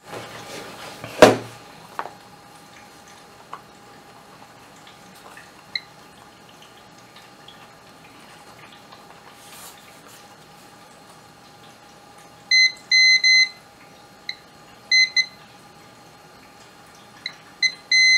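A sharp knock about a second in, then, in the second half, a multimeter's continuity beeper sounding in short, uneven beeps as the Amiga 1000 key switch is pressed. The switch is making contact only intermittently.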